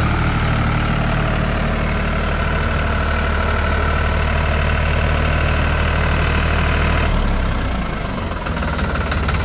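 A New Holland 3600-2 tractor's diesel engine runs steadily while the tractor drives slowly along. About seven seconds in, the engine note drops and eases off briefly, then picks up again.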